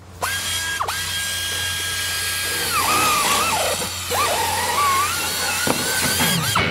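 Intro sting: a high whining tone with overtones, held steady for a couple of seconds, then bending up and down in pitch.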